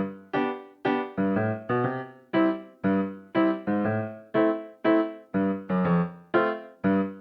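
Background piano music: a melody of single struck notes, each dying away, at about two notes a second.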